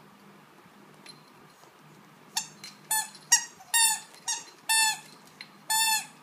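A squeaky plush toy squeaking as two dogs chew and tug on it: about seven squeaks in quick succession starting a little over two seconds in, mostly short, the last two held longer.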